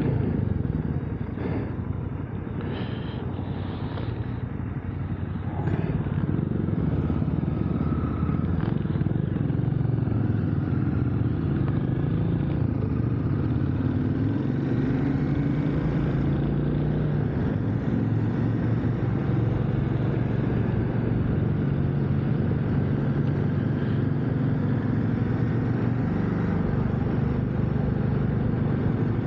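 KTM 890 Adventure R's parallel-twin engine running steadily at road speed, under a steady rush of wind noise.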